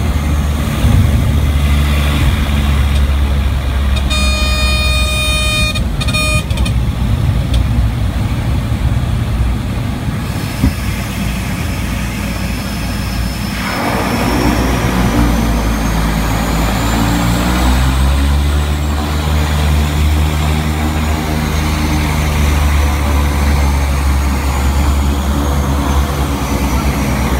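Propeller floatplane's engine and propeller droning, heard from inside the cabin during a water landing. A pitched tone sounds for about two seconds, about four seconds in. Around fourteen seconds in, a rush of water spray begins as the float touches down, and the engine note then changes as the plane slows on the water.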